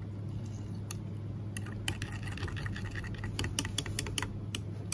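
A metal utensil stirs liquid plastisol with glitter flake in a glass measuring cup, clicking against the glass now and then, with the clicks coming faster near the end. A steady low hum runs underneath.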